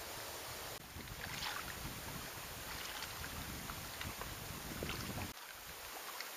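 Lakeshore ambience: wind rumbling on the microphone while small lake waves lap against the shore rocks with short splashes. The sound changes abruptly about a second in and again near the end, where the shots change.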